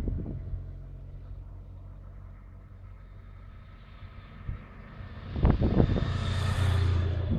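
A motorcycle approaching along the lane and passing close by, its engine growing louder from about five seconds in, with tyre and wind hiss at its loudest as it goes past near the end. At the start the engine of a motorcycle that has just passed fades away.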